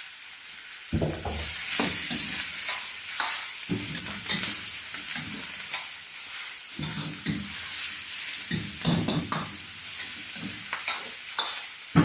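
Sliced lamb and scallions sizzling in hot oil in a wok as they are stir-fried, the utensil repeatedly scraping and knocking against the pan. The steady hiss starts about a second in.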